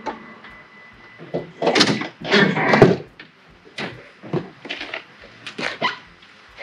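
Clunks and rattles of a camper van's cab door being opened as the driver climbs out, loudest about two seconds in, followed by a few lighter knocks and steps on frozen snow.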